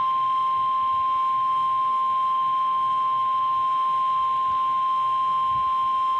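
NOAA Weather Radio warning alarm tone: one steady high-pitched tone at about 1050 Hz. It signals that an emergency warning, here a severe thunderstorm warning, is about to be read.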